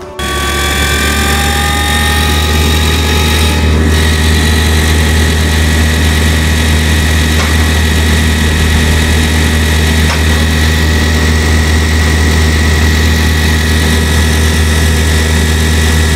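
Forestry mulcher head on a compact track loader running unloaded with its belt-drive cover open. Its rotor and belts spin up with a rising whine over the first few seconds, then run at a steady high whine over the loader's steady engine drone.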